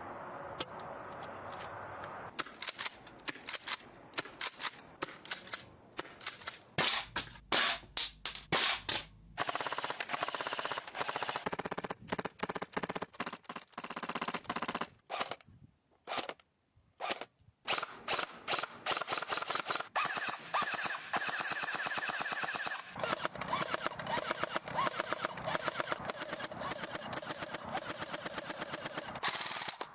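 A gun firing in rapid automatic bursts with short pauses. After a break of about two seconds midway, it fires long, nearly continuous strings of shots, many per second.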